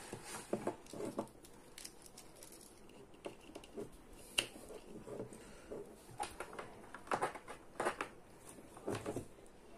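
An LED headlight bulb and its wiring connector being handled and plugged together: faint scattered clicks, taps and rustles of small plastic parts.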